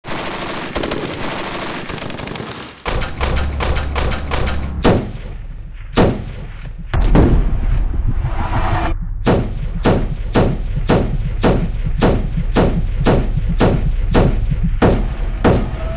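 Bulgarian MG1M machine gun (a PKM copy in 7.62 NATO) firing. A fast run of shots fills the first three seconds. After that come single heavy shots that grow more widely spaced, settling into an even pace of about one every 0.6 s, with a low rumble underneath.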